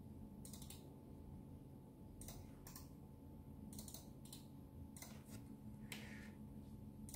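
Faint, scattered clicks from operating a desktop computer, mostly in close pairs, over a low steady hum.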